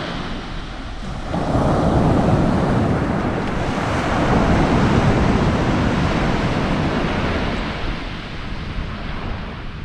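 Rushing noise of wind and surf, swelling about a second in and easing slightly near the end.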